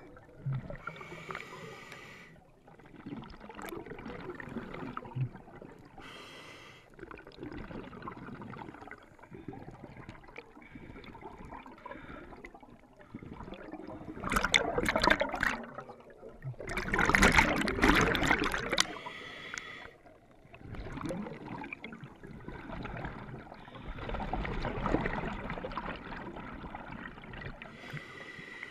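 A diver breathing underwater through a scuba regulator: softer hissing inhalations alternate with bursts of exhaled bubbles. The loudest bubble bursts come twice near the middle.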